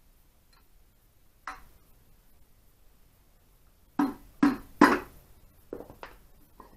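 Soft-faced mallet knocking on an Ariel motorcycle engine crankcase to seat the case half while setting the crankshaft end float: a single knock, then three heavier blows in quick succession about four seconds in, followed by a few lighter knocks.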